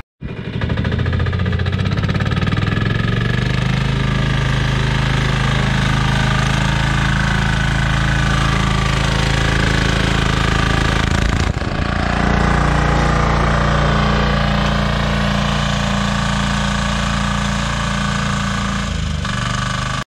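Diesel engine of a Dzik two-wheeled walking tractor running steadily under load while it pulls a hole-making implement through wet clay.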